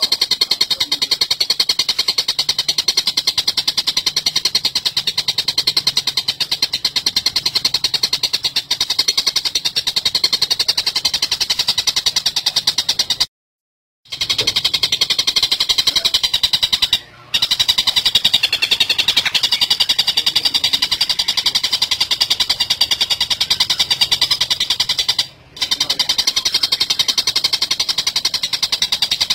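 Dollarbird (tengkek buto) calling in a continuous fast, harsh chatter, a rapid run of repeated notes. It breaks off briefly about 13, 17 and 25 seconds in.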